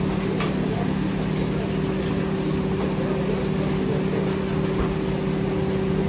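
Steady low hum of a running motor in a commercial kitchen, a constant drone that does not change.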